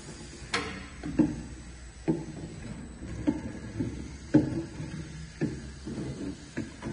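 Plastic jars knocking against one another and the guide rails on a rotating turntable bottle feeder: irregular sharp clicks and knocks, roughly one every half second to second, over a steady low machine hum.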